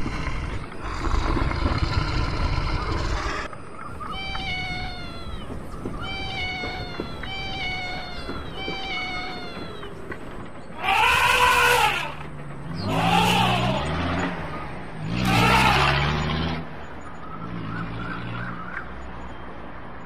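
Domestic cat meowing: a run of short, higher mews, then three long, loud meows in the second half. It opens with a low rumbling sound for the first few seconds.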